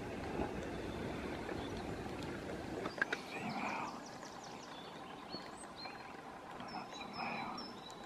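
Conifer-forest ambience: a steady low rushing noise, with two sharp taps about three seconds in and several brief high bird notes scattered through the second half.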